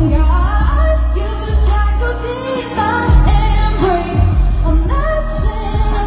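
A woman singing a pop song live into a microphone over loud accompaniment with a heavy bass, heard through the stage sound system.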